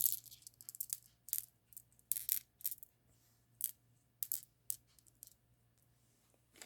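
Hard stone beads, 10 mm matte Kambaba jasper rounds, clicking and clinking against one another as they are handled: a scatter of short, light clicks that stops about five seconds in.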